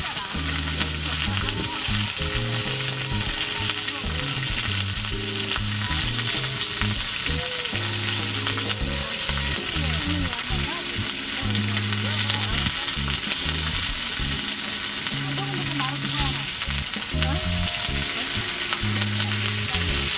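Slices of beef sizzling steadily in a small black grill pan on a mini tabletop brazier as they sear.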